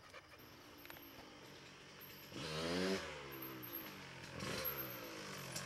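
Kawasaki KX125 two-stroke dirt bike engine revving up and down as it rides the hillclimb, with the loudest rev about two and a half seconds in, falling away in pitch.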